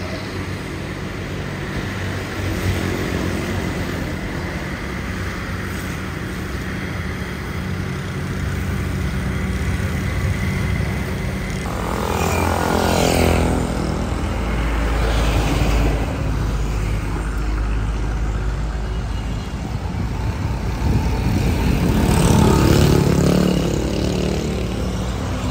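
Road traffic: motor vehicles running and passing, with a steady engine hum at first. A motorcycle goes by about twelve seconds in, its engine note falling as it passes, and another vehicle passes, louder, near the end.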